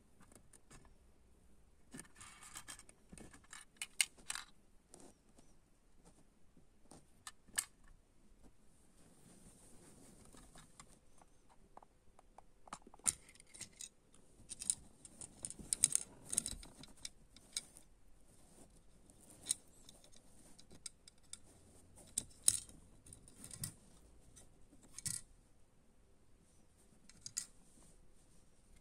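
Small plastic parts of a model tarped container clicking and tapping as they are handled and pulled apart: scattered sharp clicks, some in quick clusters.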